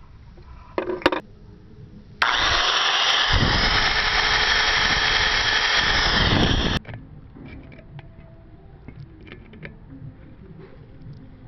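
A few light hammer taps on a nail against a metal can, then a rotary tool (Dremel) running loudly and steadily for about four and a half seconds, starting and stopping abruptly.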